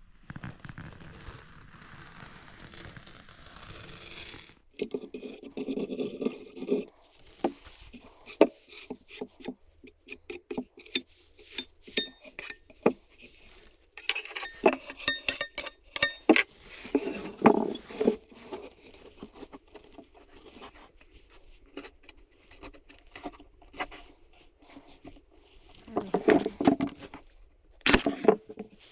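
Irregular scraping, clicking and knocking of hard objects being handled, with a short run of ringing clinks partway through.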